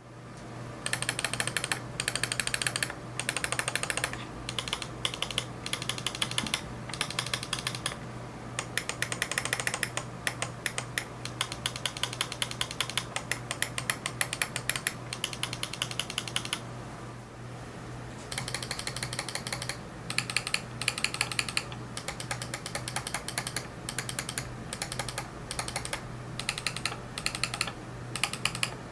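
Endgame Gear OP1we gaming mouse buttons clicking in quick runs of many clicks a second, tested with stock switches and with an aftermarket switch pack installed. The clicking stops briefly about 17 seconds in, then resumes. A steady low hum runs underneath.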